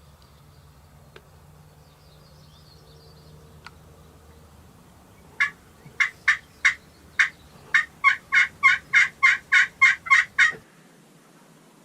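A run of about fifteen loud turkey yelps, starting about five seconds in. They come slowly at first, then quicken to about three a second, and stop abruptly.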